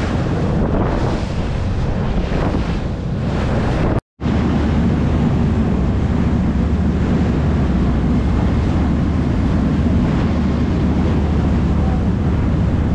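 Wind buffeting the microphone and water rushing in the wake of a boat under way, over the steady low drone of the boat's engine. The sound cuts out briefly about four seconds in, and the low drone is steadier after it.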